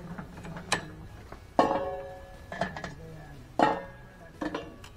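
Metal clanks as charcoal briquettes are picked out of a metal pail with tongs and dropped into an Orion cooker's metal drum: five sharp clanks about a second apart, each ringing briefly.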